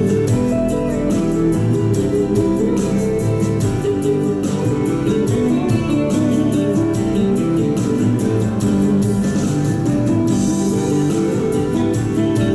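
Instrumental piano music played live: chords and a melody line, steady and unbroken, with no singing.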